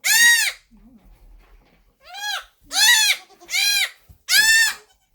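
Newborn Nigerian Dwarf goat kid bleating loudly and repeatedly: five high-pitched calls, each rising then falling in pitch, one at the start and four in quick succession from about two seconds in.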